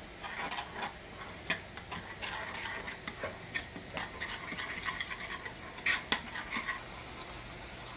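A spoon stirring a thick mayonnaise-based sauce in a glass bowl: irregular soft scrapes and light clinks against the glass, stopping about a second before the end.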